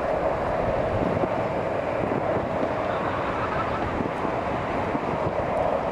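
Double-deck electric passenger train rolling along the line, a steady rumble of wheels on rail.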